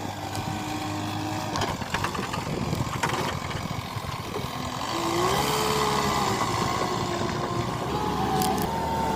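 JCB 3DX Eco backhoe loader's diesel engine running under work, its note rising about halfway through and falling again near the end, with a few short clanks.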